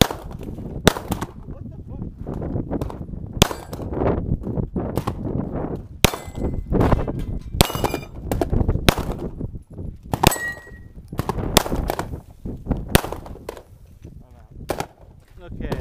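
About a dozen 9mm Glock pistol shots fired at an unhurried, uneven pace, roughly one every second or so. Hits on AR500 steel plates ring with a metallic clang.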